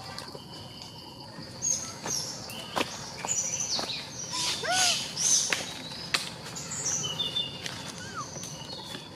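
Forest birds chirping and calling, with quick high chirps, several sharp clicks and a few short rising-then-falling calls. A steady high tone, like an insect, fades out about two seconds in.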